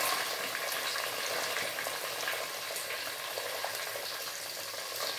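Cubed onions sizzling steadily as they fry in hot oil and ghee in an open pressure cooker.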